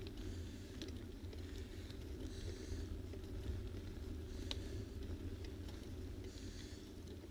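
Steady low rumble of wind and movement noise on a moving camera's microphone, with faint hissy rustles every second or two and a few light clicks.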